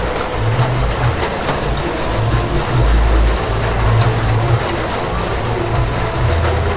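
Heavy rain falling steadily: a dense hiss dotted with sharp drop taps, over a low rumble that swells and fades every second or two.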